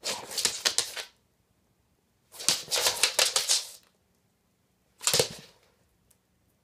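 A springer spaniel with a chew stick in its mouth making three bursts of rapid, crackly clicking, each about one to one and a half seconds long.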